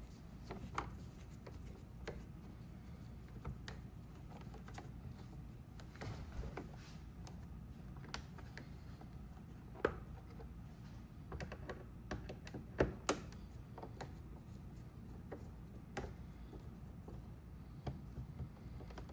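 Scattered small clicks and taps as a Phillips screwdriver takes the screws out of a Roomba's plastic battery cover and the parts are handled, over a faint low hum.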